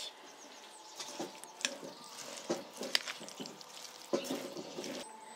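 Shredded cabbage and carrot being stirred into mayonnaise in a glass bowl: wet, irregular squishing and rustling, with a few sharp clicks of the metal utensil against the glass.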